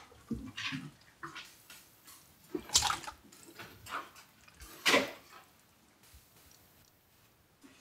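Wet squelches, slaps and drips of slimy, tentacled raw flesh like an octopus being handled in hands and a metal roasting tray: a run of short squishy sounds, the loudest twice, about three and five seconds in.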